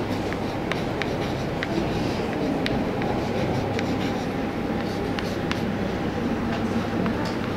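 Chalk writing on a blackboard: irregular sharp taps and short strokes as the chalk strikes and moves across the board, over a steady low background rumble.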